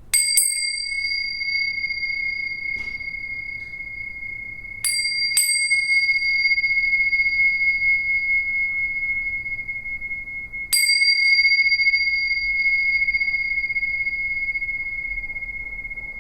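Tingsha cymbals struck together four times: once at the start, twice about half a second apart near five seconds, and once more near eleven seconds. Each clash leaves a long, high, steady ring that slowly fades.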